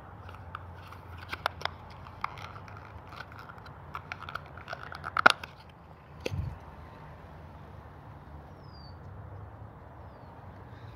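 Scissors clicking and plastic fishing-tackle packaging crackling as it is cut open and handled, with a soft thump on a plastic table about six seconds in.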